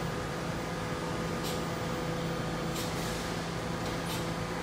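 New York City subway train standing at the platform with its doors open: a steady hum with a few held tones, and short hisses about every second and a half.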